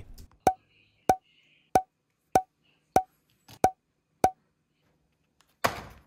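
Seven evenly spaced, wood-block-like ticks, about one every 0.6 seconds, each with a short ring at one pitch, followed by a brief rustle near the end.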